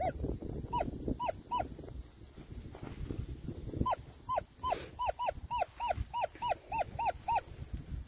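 A dog barking: a few single barks at first, then a quick run of about a dozen barks, three or four a second, that stops just before the end.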